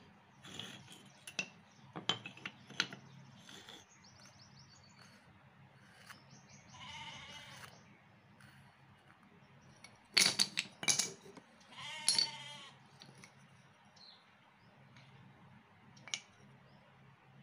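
Teak stool parts clicking and knocking against each other as they are handled and fitted, with the loudest knocks in a cluster a little past the middle. Two short wavering animal calls, each about a second long, sound in the background.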